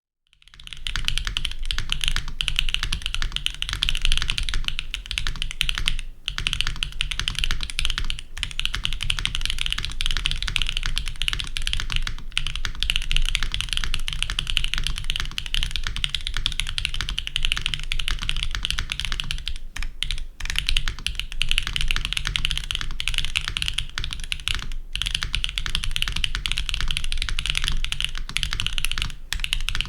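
Fast, steady typing on a custom mechanical keyboard with Gateron Baby Kangaroo tactile switches and Aifei keycaps. The many quick key clacks run almost without a break, with a few short pauses. The uploader calls the sound super thin and plasticky, which he lays on the Aifei caps. He also finds the keys inconsistent because of leftover factory lube in the switches.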